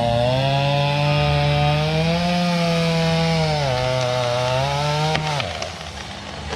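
Chainsaw running at high revs while cutting wood, its pitch sagging and recovering under load. About five seconds in the pitch drops away as the throttle is released.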